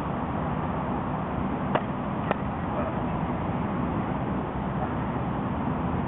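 Two sharp knocks about half a second apart, a little under two seconds in, over steady background noise: practice swords striking during sparring.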